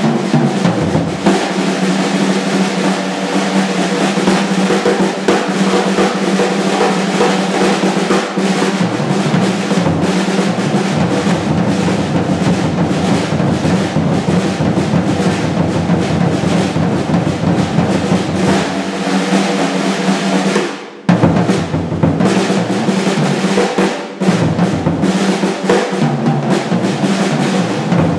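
Acoustic drum kit played hard and fast, a dense unbroken stream of snare, tom and cymbal strokes. About three quarters of the way through it drops off for a moment, then comes back in with a loud hit.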